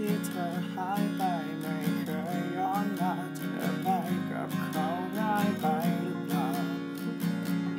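Acoustic guitar strumming chords, with a wavering melody line played or sung over them.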